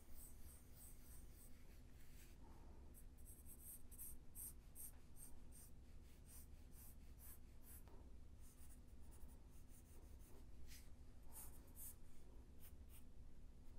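Faint scratching of a pen making quick sketching strokes on a drawing surface, many short strokes in clusters, over a low steady hum.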